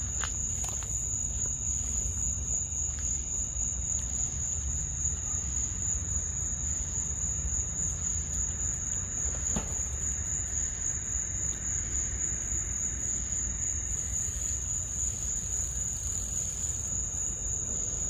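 Crickets calling in one steady, high, unbroken trill, over a low background rumble.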